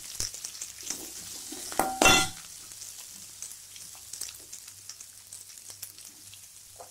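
Chopped onions sizzling in hot oil in a metal kadai as a metal slotted spoon stirs them, with a loud clatter of the spoon against the pan about two seconds in. The frying crackle then goes on more quietly with small scrapes and ticks: onions just added to the oil with fried whole spices, starting to sauté.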